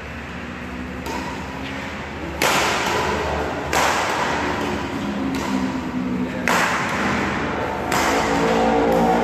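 Badminton rackets striking a shuttlecock in a rally, about five sharp hits roughly every second and a half starting about two seconds in, each ringing on in the echoing hall.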